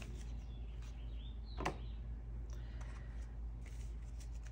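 Faint handling of paper banknotes being counted, with scattered light ticks and one sharper click or snap about a second and a half in, over a steady low hum.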